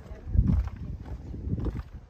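Footsteps on the planks of a wooden footbridge, with a heavier low thump about half a second in and another about a second later.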